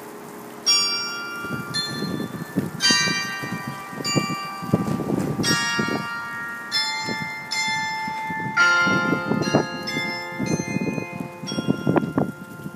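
Carillon bells playing a melody: struck notes about one a second, each ringing on and overlapping the next.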